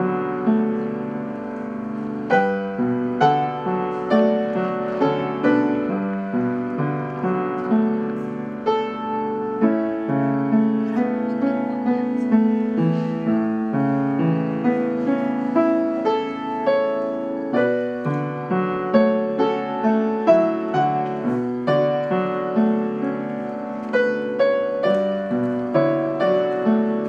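Solo piano music: a melody of struck notes over sustained lower chords.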